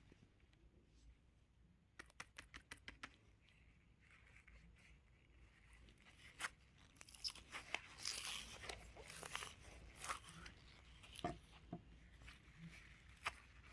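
Crunchy craft material being squeezed and pressed by hand, crackling and crunching with scattered sharp clicks. About two seconds in there is a quick run of about seven small clicks.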